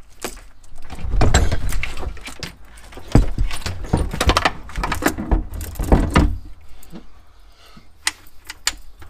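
New Bosch lead-acid car battery being lowered and worked into its tray: repeated knocks, thuds and scraping of the plastic case with rattling. It is busiest from about a second in to about six seconds, then drops to a few light clicks near the end.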